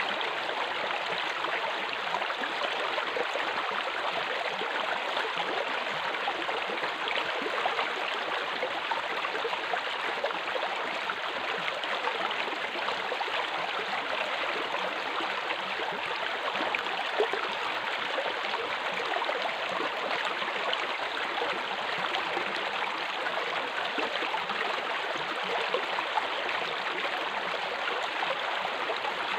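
Fast water rushing steadily down an open aqueduct flume, a continuous even rush.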